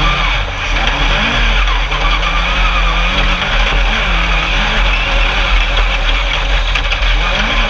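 Engine of an Alumicraft single-seat Class 10 off-road race buggy heard from on board while racing. Its pitch rises and falls again and again as the throttle comes on and off, over a steady rushing noise.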